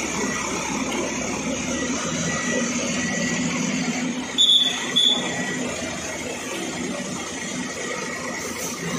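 A coach's diesel engine running steadily as the bus pulls slowly away. About four and a half seconds in come two short, shrill whistle blasts, loud over the engine.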